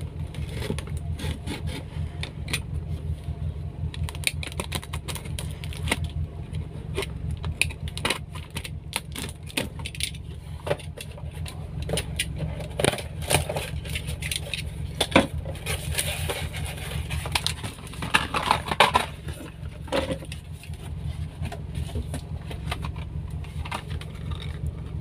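Car engine idling as it warms up, a steady low hum, under close handling noises from a cardboard parcel being opened by hand: scraping, rustling, tearing and small clicks. Near the end, small cardboard bulb boxes are handled.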